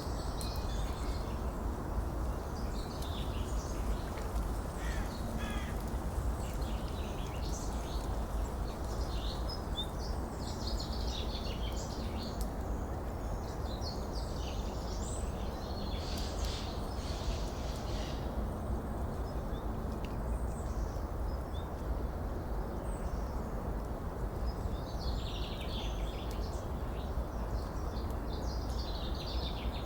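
Several birds chirping and trilling in scattered bursts over a steady rush of running water.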